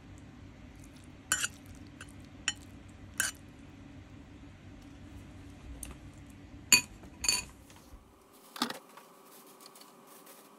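Eating utensils clinking and tapping against a plate of noodles and rice, about six sharp clinks spread apart. A low steady hum runs underneath and cuts off about eight seconds in.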